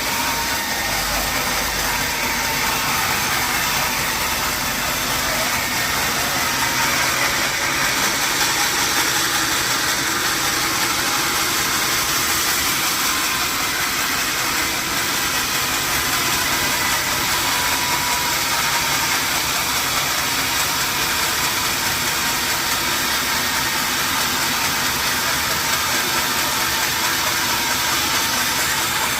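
Sawmill machinery running steadily, a loud even hiss with a faint held whine.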